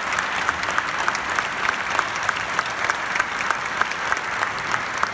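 Concert-hall audience applauding, a dense steady clapping with one clapper close by standing out at about three claps a second.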